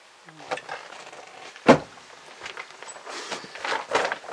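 Handling and movement noises: scattered small clicks and rustles, with one sharp knock about a second and a half in as the loudest sound.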